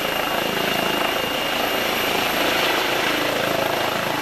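Eurocopter EC135 air-ambulance helicopter lifting off, its rotor and turbines running at take-off power: a steady, loud rotor noise with a thin high turbine whine over it.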